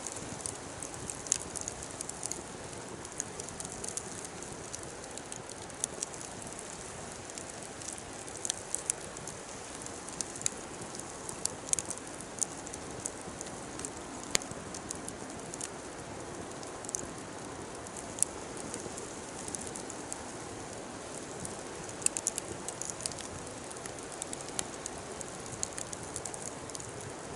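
Wood fire burning and crackling, with irregular sharp snaps and pops over a steady hiss.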